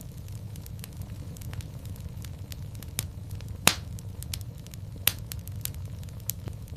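Wood fire crackling in a fireplace: a steady low rumble of flames with scattered sharp pops, a loud one about halfway through and another a second or so later.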